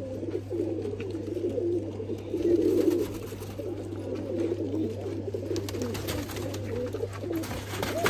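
Domestic pigeons cooing, several birds overlapping without a break, loudest about two and a half seconds in, over a steady low hum. A few light clicks come near the end.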